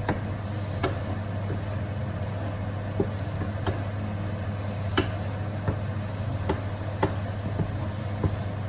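A cooking utensil knocking and tapping against a pan as the onions are stirred, a short sharp tap every second or less, over a steady low hum.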